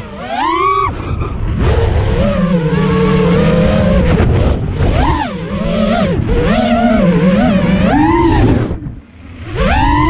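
Brushless motors of a 5-inch FPV racing quad (BOLD Clash 2306 2700KV) whining, their pitch rising and falling constantly with the throttle through turns and rolls, with a short drop as the throttle is cut near the end before they spool back up. Heard from the onboard camera, with wind rush under the motor whine.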